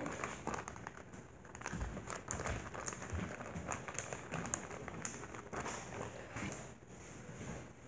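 Clear plastic zip-top bag crinkling as its zipper seal is pinched shut by hand, a run of soft, irregular crackles.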